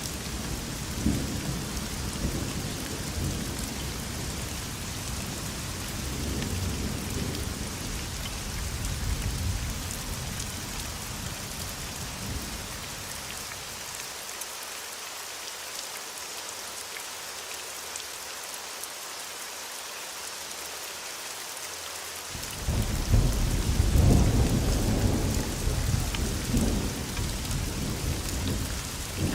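Thunderstorm: steady rain hiss with low thunder rumbles through roughly the first dozen seconds. A stretch of rain alone follows, then a louder thunder rumble sets in about three-quarters of the way through.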